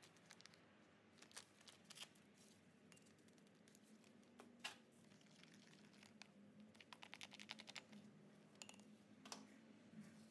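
Near silence broken by faint clicks and taps of a plastic spoon in a small glass bowl as baking powder is mixed into vinegar, with a quick run of clicks about seven seconds in.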